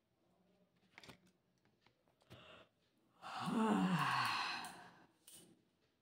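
A woman yawning once, about three seconds in: a long breathy yawn with a voiced tone that slides down in pitch. A few faint short breaths or clicks come before and after it.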